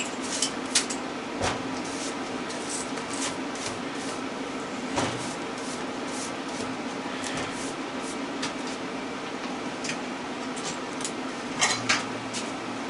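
Scattered knocks and clanks of metal scrap-motor parts being handled, over a steady low hum.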